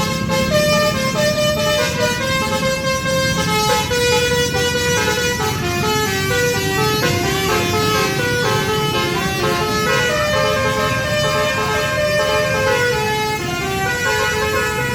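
Basuri musical air horn on a bus playing a continuous tune of stepped notes, with a low rumble underneath.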